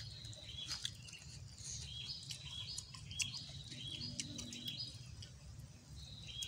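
A bird calling over and over, a short high note about every half second, with the wet clicks and smacks of chewing and of fingers tearing roast chicken close to the microphone.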